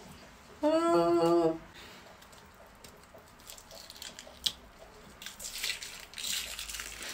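A short hummed vocal sound about a second in, then faint crackling and peeling as a prosthetic face mask is pulled off the skin, the crackles growing denser near the end.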